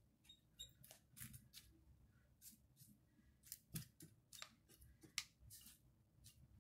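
Faint, irregular scratchy rustles and ticks of fingers brushing and pressing moist potting soil over seeds in a plastic seed-starter cell tray.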